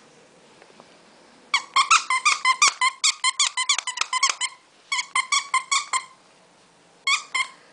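Squeaky pet toy squeezed over and over in quick succession, about five squeaks a second. It comes in three runs: a long run, a shorter run, then two squeaks near the end.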